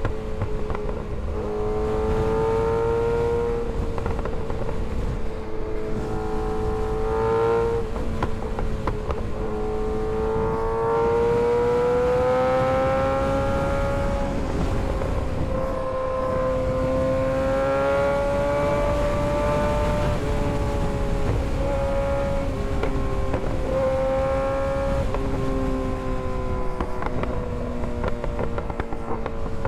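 Kawasaki ZX-6R 636's inline-four engine running under way. Its pitch climbs slowly and drops back several times as the throttle is rolled on and gears are changed.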